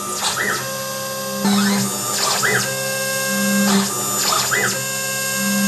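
Quick CNC K6100A router engraving acrylic: the spindle whine holds steady under a low motor hum that comes and goes. Three short rising-then-falling whirrs, about two seconds apart, come from the axis motors as the tool moves between engraved characters.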